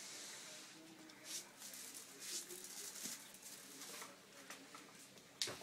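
Labradoodle puppy nosing at a laundry basket of clothes on a tiled floor: faint rustling and scuffling, with one sharp click near the end.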